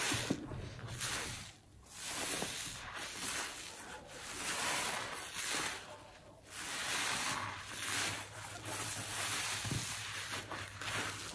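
Soap-soaked kitchen sponges squeezed in gloved hands in thick dish-soap suds: wet squelching and fizzing foam, coming in several slow squeezes each a second or two long.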